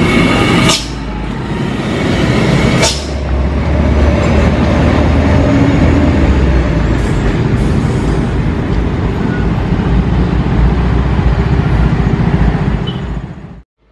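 Heavy trucks' diesel engines running loud and steady, with road traffic, on a steep climb. The sound changes abruptly about a second in and again about three seconds in, then cuts out just before the end.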